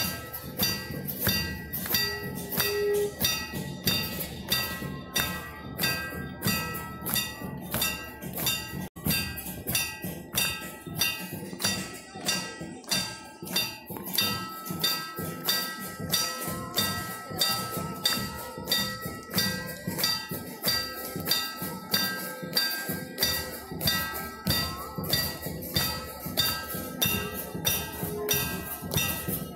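Aarti bells and percussion clanging in a steady, fast rhythm of about two to three strikes a second, each strike ringing on.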